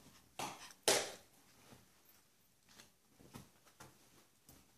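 A Chihuahua and a Portuguese Water Dog play-fighting on a blanket-covered dog bed: scuffling of paws and bedding, with two sudden sharp sounds about half a second and a second in, the second the loudest, then quieter scuffles.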